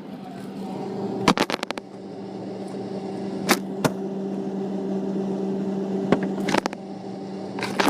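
A kitchen appliance humming steadily, with sharp clicks and pops over it: a quick run of them about a second in, then a few more scattered through the rest.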